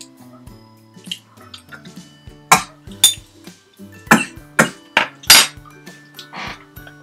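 Half a dozen sharp clinks and clatters of a small glass bottle and cutlery being handled, bunched about two to five seconds in, over light background music.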